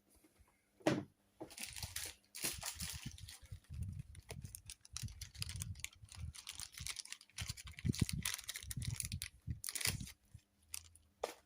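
Plastic trading-card packaging crinkling and rustling as it is handled, with irregular clicks and taps.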